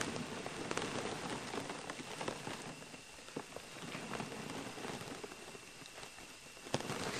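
Faint steady hiss with scattered light ticks and crackles, like a light patter; a brief louder rustle of noise near the end.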